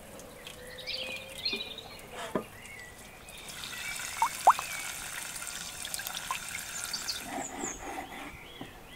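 Tap water running into a metal bowl as lamb lungs are washed by hand, with a brief louder sound about four and a half seconds in; the running water stops about seven seconds in. Birds chirp in short calls.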